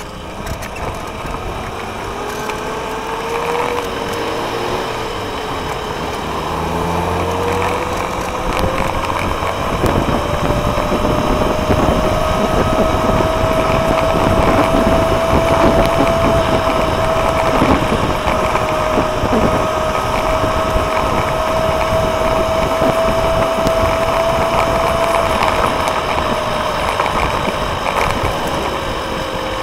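Electric scooter's motor whine, rising in pitch as it speeds up, holding steady at cruising speed, then falling near the end as it slows, over continuous wind and tyre noise on the road.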